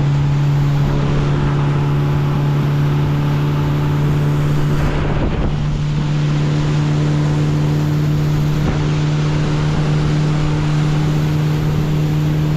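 Outboard motor of a boat running at steady speed, a constant engine hum over rushing wind and water noise, wavering briefly about halfway through.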